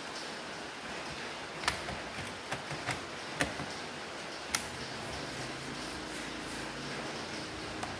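Plastic access cover on the underside of an HP 1000 laptop being pressed and snapped into place by hand: about six sharp clicks in the first half, over a steady hiss.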